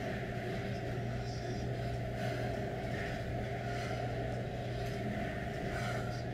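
A steady low hum that runs on without change.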